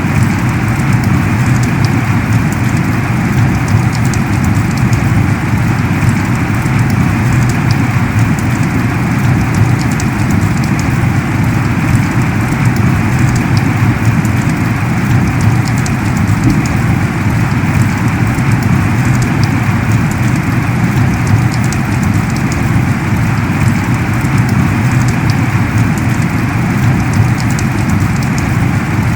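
Heavy rain falling steadily, a dense patter of drops hitting surfaces.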